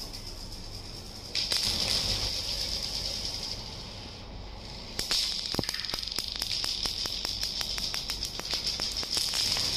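Many glass marbles rolling across a hard polished floor: a steady rolling hiss that swells about a second and a half in, eases off, then returns about five seconds in with rapid clicking as the marbles knock against one another.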